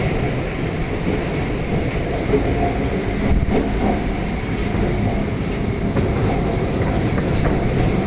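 Electric multiple unit (EMU) suburban train running along the track, a steady noise of wheels on rails and the moving coach.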